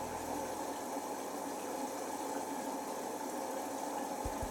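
Beko front-loading washing machine on its wash cycle: wet towels sloshing and tumbling in the drum, a steady watery churning. A low hum fades out about half a second in, and a couple of low knocks come near the end.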